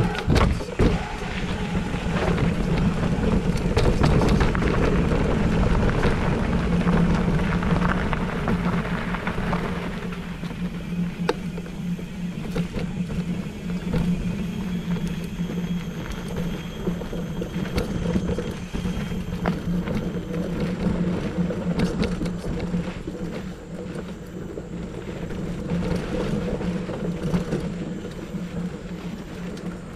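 Mountain bike riding along a dirt forest trail: the knobby tyre rolls with a steady low hum, and the bike knocks and rattles over bumps. It is louder for the first ten seconds or so, then quieter.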